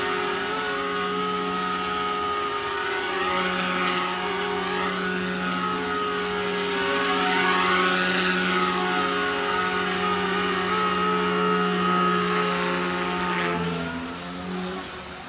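Blade mCP X BL micro RC helicopter in flight: a steady rotor buzz with the high whine of its brushless motor. Its pitch glides up and down twice as it swoops close, and it fades near the end as it climbs away.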